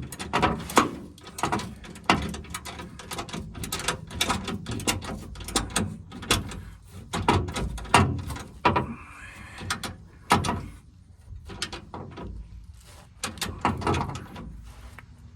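Hand tools working a bolt into the spare-tire winch mount under a pickup truck: irregular clicks and metallic knocks as the bolt is fitted and tightened.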